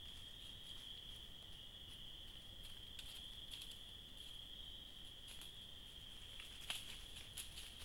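Steady chorus of crickets trilling in the night woods, with a few sharp rustles and snaps of a deer stepping over dry leaf litter, the loudest about two-thirds of the way through.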